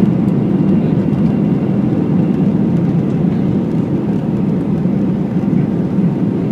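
Airbus A320 cabin noise in the climb after takeoff: a steady, low rush of the jet engines and airflow, heard from a window seat over the wing.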